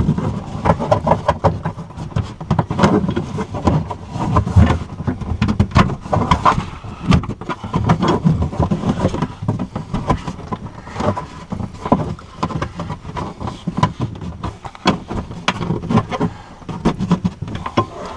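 Irregular knocks, clicks and rustling as a molded plastic under-dash cover is pressed and snapped back into place.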